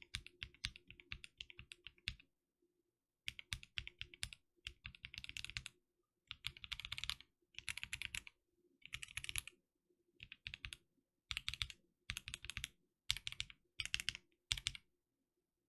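Mechanical keyboard with NovelKeys Cream linear switches, mechanically broken in ("400 Year Creams") and lubed with Krytox 205g0, being pressed in quick runs of keystrokes. A rapid run fills the first two seconds, then about a dozen short bursts follow with pauses between them.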